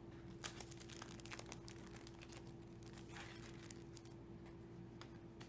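Faint rustling and crinkling of stamp sheets and their packaging being handled, with scattered small clicks.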